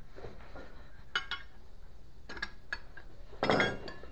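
Metal objects being handled: a few light clinks, then a louder clatter about three and a half seconds in.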